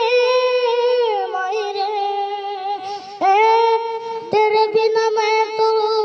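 A boy singing in a high voice, holding long notes on open vowels with short breaks between phrases.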